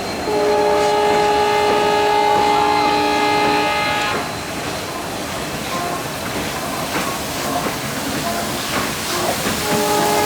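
Steam locomotive whistle blown in one long chord of several steady tones for about three and a half seconds. It is followed by steam hissing with scattered clanks, and the whistle sounds again near the end.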